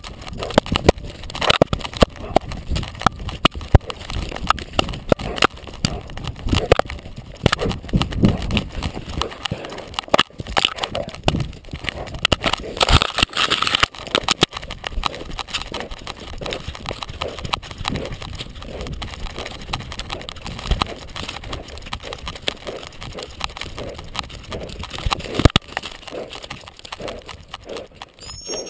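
Rapid, irregular thuds and knocks of a Labrador retriever on the move, its paws and the collar-mounted camera jostling, heard close up from the collar. A louder rushing burst comes about halfway through.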